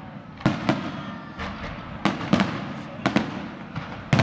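Aerial fireworks shells bursting overhead: about ten sharp bangs at irregular intervals, some in quick pairs, each trailing off in a short echo.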